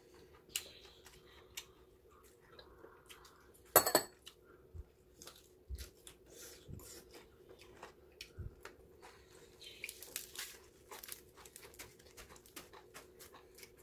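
Quiet mealtime table sounds: metal chopsticks and spoons tapping and clinking against bowls, with one sharp clink about four seconds in, over a faint steady hum.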